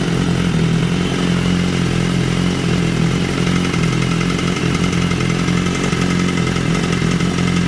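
BMW S1000RR inline-four engine idling steadily, with a knock from the freed exhaust flap valve that sounds as if it comes from the engine itself.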